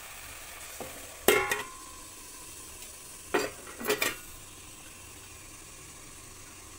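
Grated carrots sizzling steadily as they roast in ghee in a steel kadhai. A ringing metal clank comes about a second in, then two more clanks between three and four seconds in as a steel lid is set on the pan.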